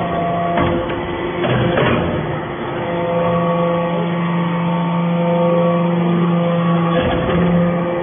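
Steel powder briquetting press running: a steady hydraulic hum, with a few sharp metal knocks in the first two seconds and again near the end.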